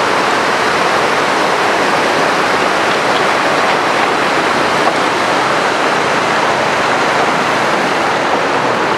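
Steady, loud rushing of a flood-swollen mountain river, its fast, churning water running over rocks.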